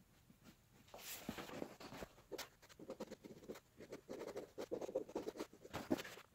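Pen or marker scratching across pattern paper in irregular strokes, with rustling and small clicks, starting about a second in.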